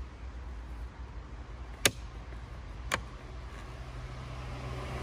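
Two sharp plastic clicks about a second apart as a carbon-fibre cap is pressed onto a car's wing mirror housing, its clips being lined up. Under them is a low rumble of traffic, and a passing vehicle's hum starts to build near the end.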